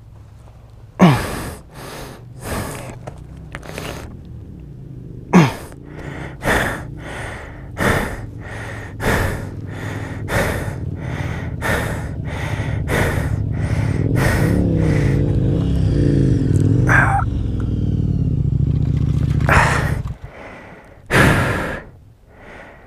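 A man's heavy, pained breathing after a fall that has hurt his knee: sharp gasps and exhales about once a second, the first few with a falling groan. Under it an engine runs, growing louder from about six seconds in, its pitch wavering near the middle, and stops abruptly about twenty seconds in.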